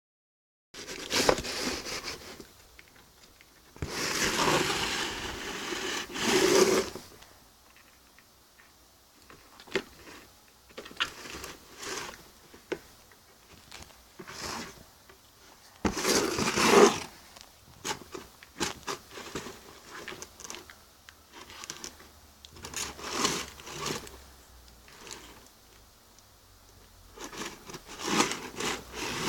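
A cat scratching and scrabbling at a hair dryer's box: irregular bursts of scraping and rustling with short pauses, the longest and loudest stretch about four to seven seconds in, another strong burst around seventeen seconds, and more near the end.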